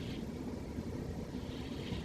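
Sleeping cat snoring: a steady low rumble, with a soft hiss of breath just at the start and again from about a second and a half in.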